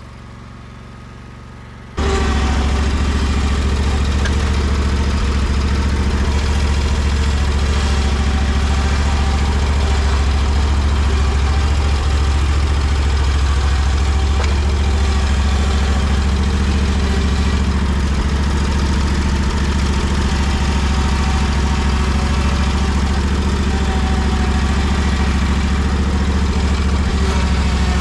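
Engine of a Hustler Trimstar mower running steadily with a strong low hum. It cuts in abruptly about two seconds in.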